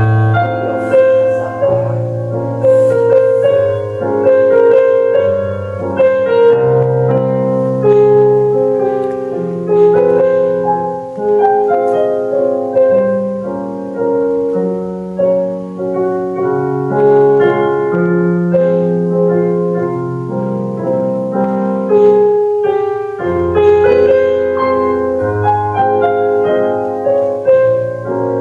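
Solo piano playing a flowing classical-style accompaniment for ballet barre exercises, a melody moving over long held bass notes, with a short break between phrases near the end.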